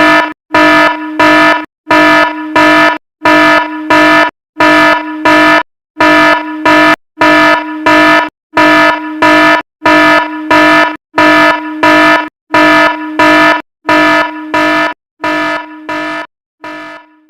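Fire alarm horn sounding a harsh, buzzing tone in loud, evenly spaced pulses about once a second. It fades out over the last few seconds.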